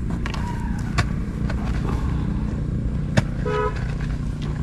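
A motor vehicle engine running steadily, with a short horn-like toot about three and a half seconds in and two sharp clicks.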